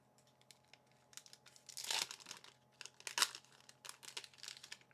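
Crinkling and rustling of a trading-card booster pack's foil wrapper and cards being handled, with a louder crackle about two seconds in and a sharper one a little after three seconds.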